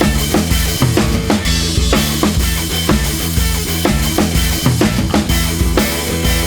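Background rock music with a steady drum-kit beat of bass drum and snare over bass notes.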